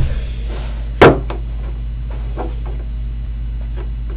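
A steady low hum with one sharp knock about a second in and a few faint ticks after it, from plastic toy animals and hands on a wooden tabletop.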